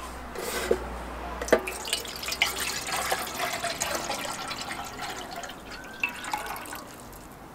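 Water poured from a stainless steel Pathfinder bottle into a metal mess tin, splashing as the tin fills, easing off near the end.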